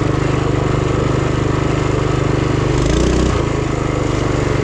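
Duromax 212cc single-cylinder four-stroke engine on a mini bike running steadily under way on gasoline. The engine note shifts briefly about three seconds in, then settles back.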